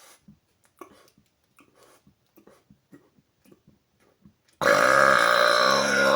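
A man's loud, drawn-out burp with a low croaking pitch, starting suddenly near the end, after a few seconds of faint small mouth clicks.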